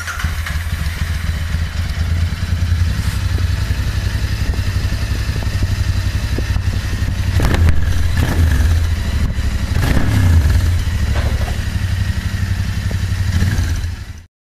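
Royal Enfield Interceptor 650's parallel-twin engine running through its stock twin exhaust silencers, a steady low idle with a few short throttle blips around the middle. It cuts off abruptly just before the end.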